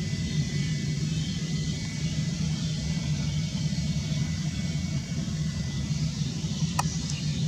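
Airbus A320-family airliner's turbofan engines running at low thrust as it taxis: a steady low rumble with a faint high whine. There is one short click near the end.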